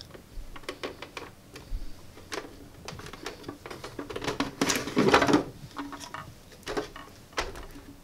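Plastic housing of a small mini dehumidifier handled: scattered light clicks and taps of plastic on plastic, with a longer, louder sliding sound about five seconds in as the clear plastic water tank is pulled out of the body.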